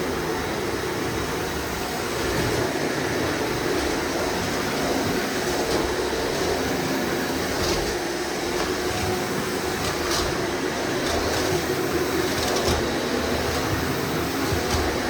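Shark NZ780UKT vacuum cleaner running steadily while vacuuming, with a few short clicks partway through.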